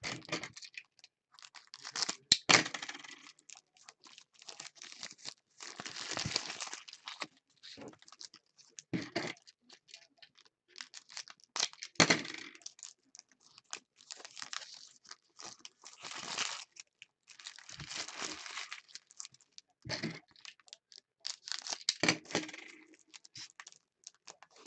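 Foil trading-card pack wrappers being torn open and crinkled, in a string of short rips and crackles about every two seconds.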